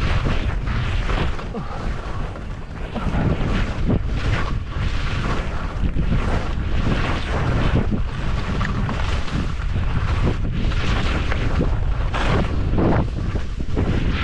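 Wind buffeting the microphone of a skier's action camera, over the scrape and rasp of skis cutting through chopped, tracked snow, with a louder swish at each turn.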